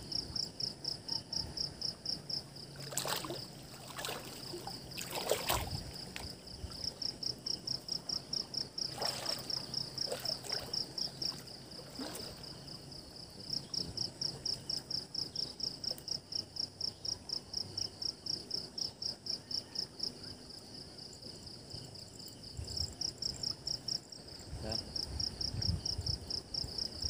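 An insect chirping in a steady, high-pitched trill of rapid pulses. A few brief noisy sounds come about three to six seconds in and again around ten seconds in.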